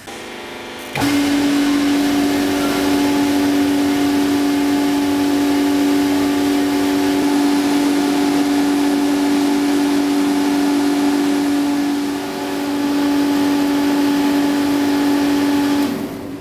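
Rotary-basket industrial parts washer running its hot-water spray cycle: the pump starts about a second in with a steady hum over the hiss of water spraying. The sound dips briefly past the middle and stops near the end.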